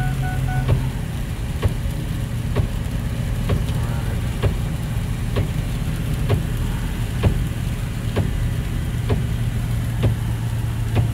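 Diesel engine of a Ford F-450 Super Duty tow truck running steadily at cruising speed, heard from inside the cab over road and rain noise. A light tick recurs about once a second from the windshield wipers.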